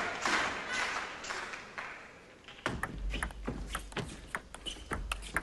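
Applause dies away, then about two and a half seconds in a table tennis rally starts: the celluloid ball clicks sharply off bats and table in quick, irregular succession.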